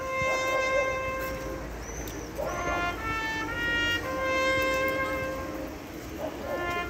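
Trumpet playing a hejnał, a bugle call, as a slow melody of long held notes with short breaks between phrases.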